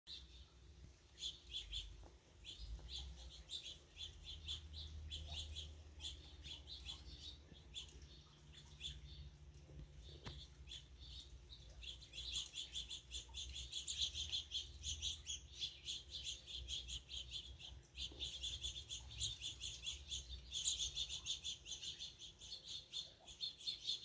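Finches chirping and twittering in quick runs of short, high notes, growing busier about halfway through.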